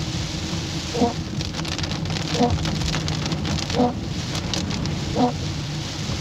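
Heavy rain pelting the car's roof and windshield in a dense patter, heard from inside the cabin. The windshield wipers sweep about every second and a half, each pass giving a short pitched sound, over a steady low hum.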